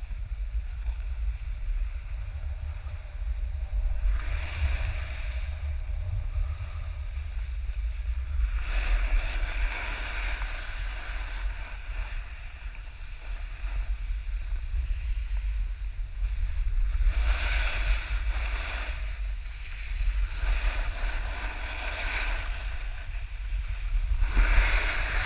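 Wind buffeting a GoPro microphone as a snowboard rides down a groomed piste, with the hiss of the board scraping across the snow coming and going in several long stretches.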